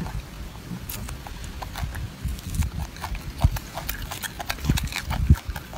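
Golden snub-nosed monkey chewing and smacking on a piece of fruit close to the microphone: irregular clicks several times a second, with a few low thumps in the second half.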